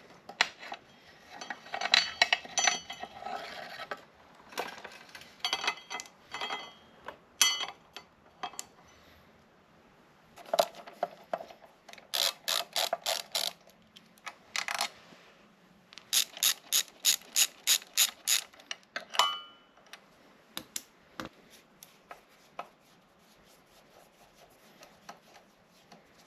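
A hand ratchet wrench clicking in quick runs as bolts or nuts are turned, mixed with the clank and clatter of metal tools and parts being handled.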